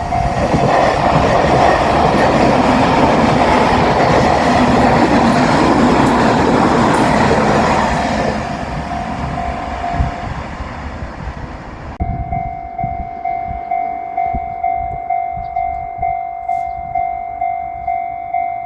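A JR Shikoku 8000-series electric train passes a level crossing, its loud wheel and running noise with rail-joint clacks fading out over the first eight seconds or so. Through this, the crossing's electronic warning bell rings in a two-tone ding. After an abrupt cut about twelve seconds in, the crossing bell rings alone, about two strikes a second.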